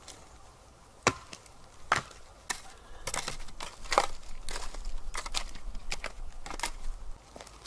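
A wooden stick scraping and raking through the ash and dirt of a spent campfire pit. There are two sharp knocks about one and two seconds in, then several seconds of continuous scratching and scuffing.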